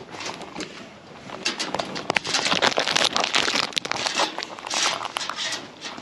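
Scratchy rustling and scuffling made of many small crackling clicks, growing louder about two seconds in.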